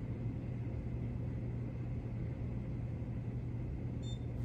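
Steady low hum throughout, with a short high-pitched beep near the end from a dental LED curing light as it times a composite curing cycle.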